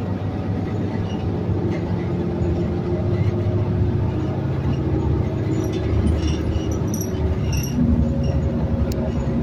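New Flyer XN60 articulated bus under way, heard from inside: a steady low rumble from its Cummins Westport ISL G natural-gas engine and ZF 6AP1700B automatic transmission, with a faint whine that drops in pitch near the end.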